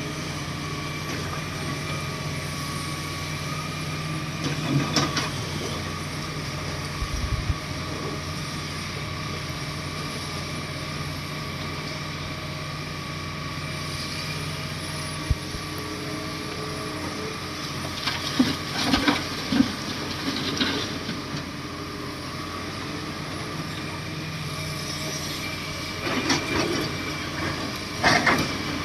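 A heavy diesel machine, a bulldozer, running steadily, with short bursts of metallic clatter. Its low engine hum drops away about halfway through.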